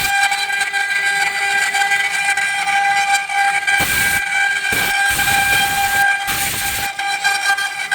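Router spindles of a multi-head four-axis CNC wood carving machine running with a steady high whine, with surges of rougher cutting noise about four, five and six and a half seconds in.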